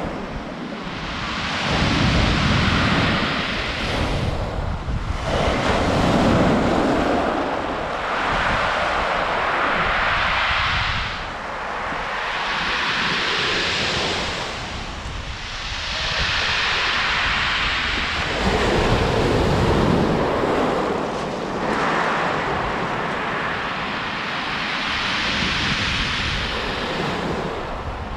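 Sea waves breaking and washing up a pebble beach in repeated surges, a hissing swell every three to four seconds. Wind rumbles on the microphone underneath.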